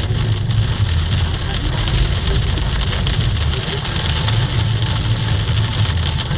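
Steady engine and tyre rumble heard from inside a moving car, with a constant hiss of tyres on a wet, snow-covered road.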